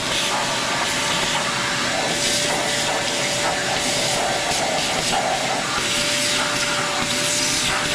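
Shop vac running steadily: an even rushing hiss of air with a constant motor whine.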